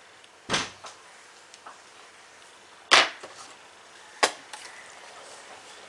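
Three sharp clicks of hard objects knocking, the loudest about three seconds in, with a couple of fainter taps between them. They come from handling at a laptop's plastic case and tools on the bench.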